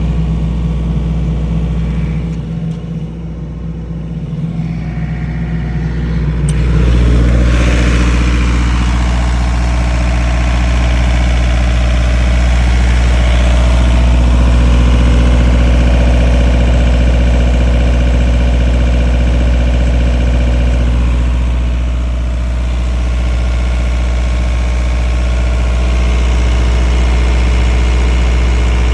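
35 kW diesel generator engine running steadily; about six to seven seconds in it grows louder and its tone shifts, then it runs on evenly at the higher level.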